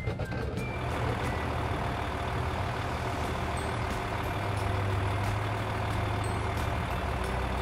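Dubbed tractor engine sound effect: a heavy engine running steadily with a deep hum, swelling a little midway.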